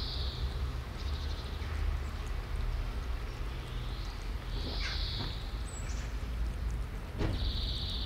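Several cats eating food from plastic trays: faint chewing and clicking over a steady low rumble, with a few short hissy sounds near the start, about five seconds in, and near the end.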